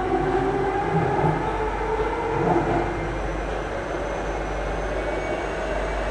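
Singapore MRT North-South Line train running between stations, heard from inside the carriage: a steady rumble of wheels and motors with a faint steady whine.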